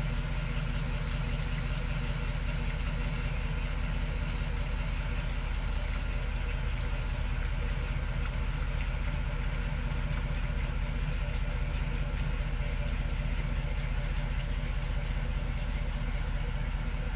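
Volvo Penta inboard boat engine idling steadily while it draws antifreeze through its raw-water pump into the exhaust risers and muffler, winterizing the exhaust system.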